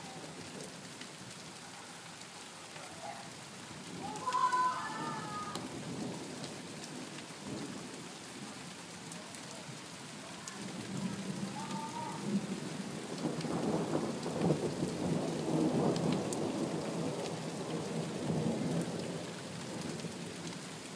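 Steady rain falling during a thunderstorm, with a long rolling thunder rumble that builds from about halfway through and fades away near the end. A brief pitched sound stands out about four seconds in.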